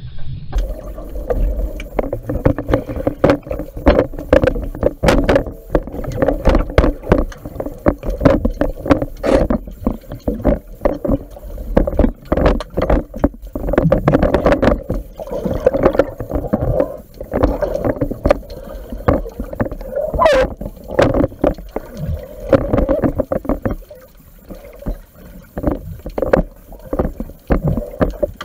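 Muffled underwater swimming noise from an action camera in its waterproof housing: a rumbling wash of water with frequent irregular knocks and clicks as the diver moves.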